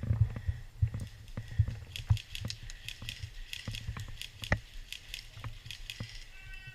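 Scattered sharp clicks and cracks at irregular intervals, with one louder crack about four and a half seconds in, over a low rumble: airsoft guns firing across the field.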